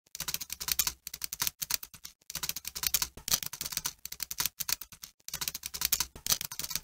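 Typing sound effect: rapid, irregular key clicks with a few short pauses, keeping pace with text being typed out on screen.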